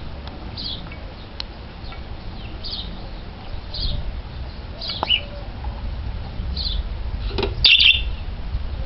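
Caged pet parrots giving short, high chirps about once a second, with a louder, busier burst of chirping near the end, over a steady low rumble.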